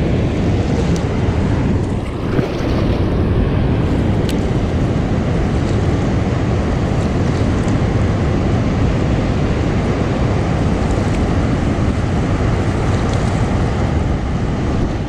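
Steady rush of water pouring through the dam's open spillway gates and churning down the river below, with wind buffeting the microphone.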